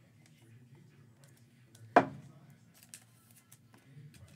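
A single sharp knock about two seconds in, over faint small clicks and a low steady hum.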